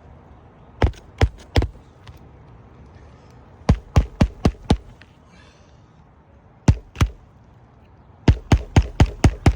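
Hammer driving roofing nails flush through asphalt shingles, struck in quick runs of blows: three, then about six, then two, then about six. The nails had been left sticking up, which keeps the shingles from sealing down.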